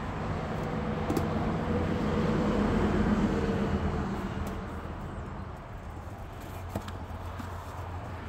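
A motor vehicle's engine hum that swells to a peak about three seconds in and then fades away. A few faint clicks come from a small cardboard box being pulled open.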